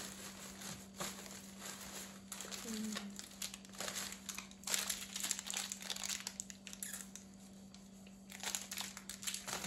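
Thin plastic carrier bag and plastic snack wrappers crinkling and rustling as grocery items are rummaged for and pulled out, in irregular rustles that ease off for a moment about two-thirds of the way through.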